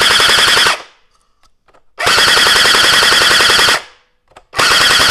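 Custom SCAR bullpup gel ball blaster firing on full auto in three bursts: one that stops just under a second in, a longer one of nearly two seconds starting about two seconds in, and a short one near the end. It is shooting at its normal power, about 230 to 250 FPS.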